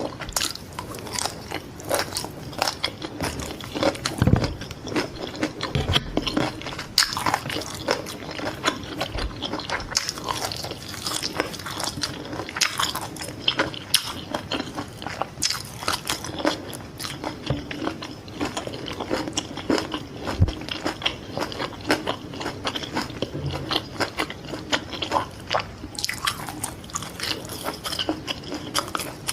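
Close-miked chewing and biting of fried fish balls: a steady run of wet clicks and crackles.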